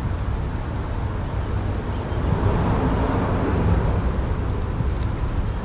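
Steady low rumble of wind buffeting the microphone over the rush of a flowing river, swelling a little about halfway through.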